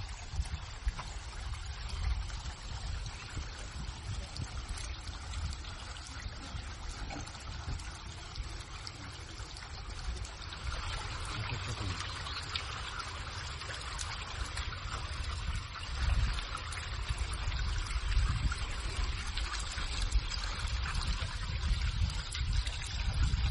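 Water running and trickling as a continuous hiss over a steady low rumble; the water grows louder about ten seconds in.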